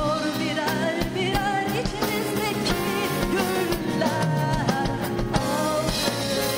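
A woman singing a pop song live into a handheld microphone, her voice wavering on held notes, over an instrumental accompaniment with drums.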